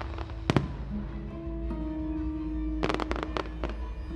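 Fireworks exploding over music: a pair of sharp bangs about half a second in and a quick cluster of cracks around three seconds, with sustained musical notes throughout.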